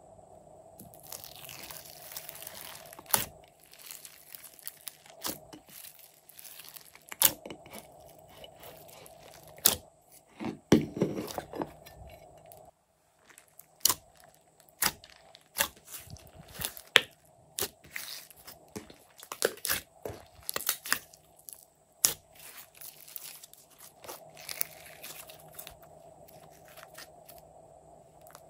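Hands squishing, pressing and kneading glossy slime, making many irregular sharp sticky clicks and pops.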